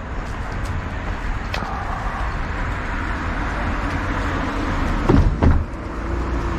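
Steady low rumble of outdoor background noise, with two short, louder low sounds in quick succession about five seconds in.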